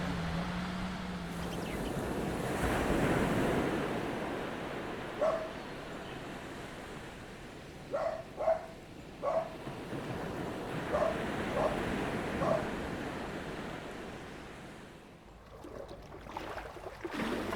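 Waves washing up on a sand beach, swelling and easing. A dog barks in the distance: once, then in two groups of three. Near the end it gives way to irregular sloshing of strong waves against steps.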